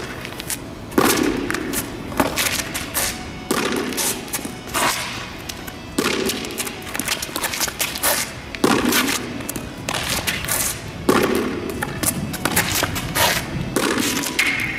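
Repeated thuds every one to two seconds as a soft safety practice ball, shaped like a hardball, is thrown against a concrete wall, bounces back on asphalt and is fielded with a flat pancake training glove, amid quick shuffling footsteps. Each impact echoes briefly off the concrete of the overpass.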